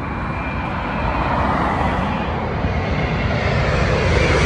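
A jet airliner's engines on final approach, passing low overhead to land, with a rumbling roar that grows louder as it approaches.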